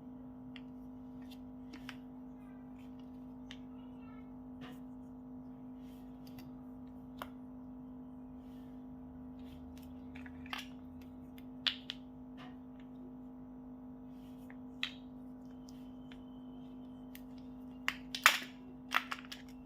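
Chocolate packaging being handled and unwrapped: scattered short clicks and crinkles, with a cluster of louder, sharper crackles near the end, over a steady low hum.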